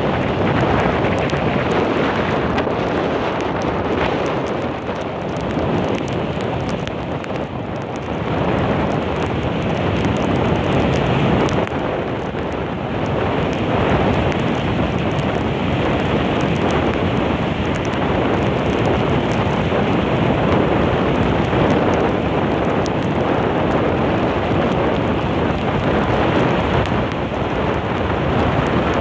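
Strong storm wind buffeting the microphone over heavy surf breaking on a sandy beach: a loud, steady rushing noise that only eases a little now and then.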